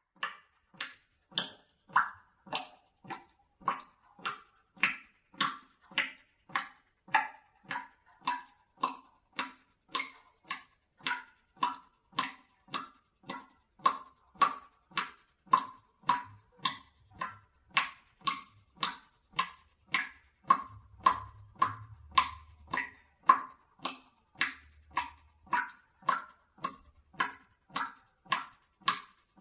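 Water dripping from a tap that is not fully closed into a bucket: a steady drip, about two drops a second, each a short ringing plink.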